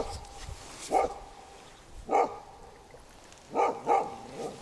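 A dog barking in short single barks about once a second, with two barks in quick succession near the end.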